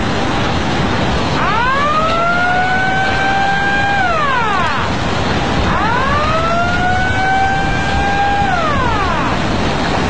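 Outdoor warning siren sounding a tsunami alert: a wail that rises, holds steady for a few seconds and falls, twice, with echoes trailing each fall, over a steady rushing noise of tsunami floodwater.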